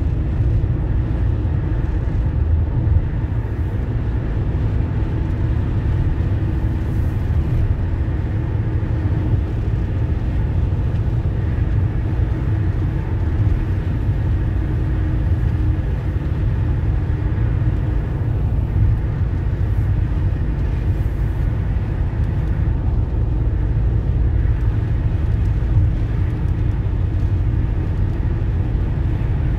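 Steady low rumble of road and engine noise inside a car's cabin as it cruises along a highway.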